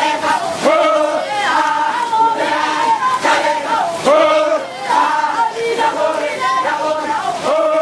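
A group of voices singing together, with long held notes that slide between pitches.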